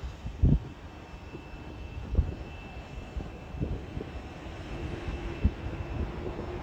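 Jet airliner engine noise from across the airfield: a steady hum with a faint high whine, growing slightly louder. Irregular low thumps of wind buffet the microphone.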